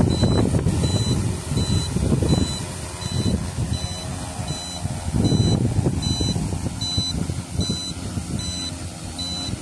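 An agricultural spray drone's rotors running with gusty low rumble, under a short high electronic beep that repeats steadily about every three-quarters of a second.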